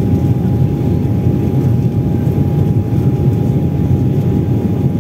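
Airliner cabin noise in flight: a loud, steady low roar of engines and airflow, with a thin constant whine above it.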